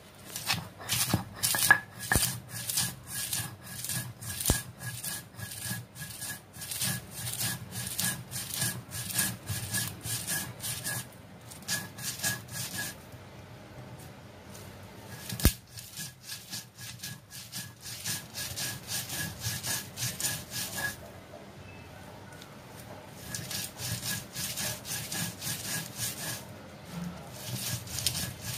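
Stone roller rubbed back and forth on a shil grinding slab, crushing dried fish, onion and garlic into a paste: quick rhythmic rasping strokes of stone on stone. The grinding stops twice for a couple of seconds, and there is one sharp knock about halfway through.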